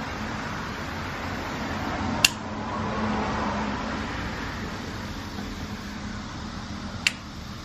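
Steady background hum and hiss, with two sharp single clicks about five seconds apart from a baitcasting reel being handled while its drag is set.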